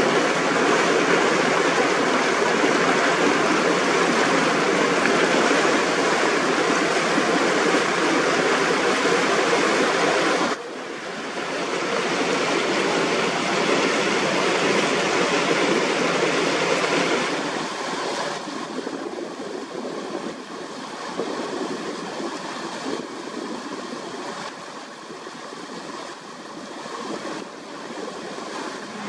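Steady rushing and splashing of water along the hull of a moving boat. It drops abruptly about ten seconds in and grows quieter over the second half.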